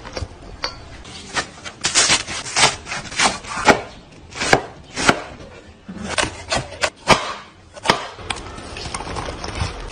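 A knife chopping vegetables on a wooden cutting board: about a dozen sharp, irregularly spaced strikes of the blade against the board.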